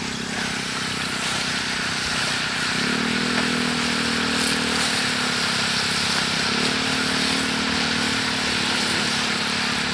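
Battered yellow bamboo shoot slices frying in a pan of hot oil: a steady sizzle. A low steady engine-like hum runs underneath and grows stronger twice, about three seconds in and again near the seven-second mark.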